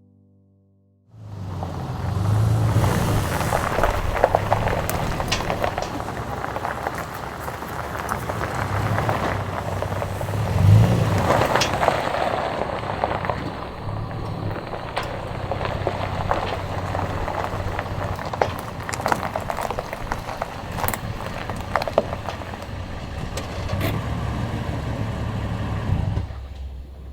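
Car driving: steady engine and road noise with a low hum and scattered clicks and knocks. It starts suddenly about a second in and drops away near the end.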